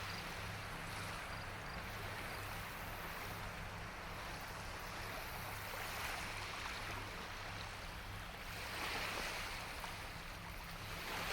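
Small Lake Erie waves washing onto the shore: a steady rush that swells every few seconds, over a low wind rumble on the microphone.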